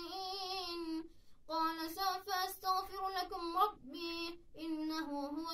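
A boy chanting the Quran in Arabic in the melodic recitation style, long held and ornamented notes in a high voice, with two short breaks for breath.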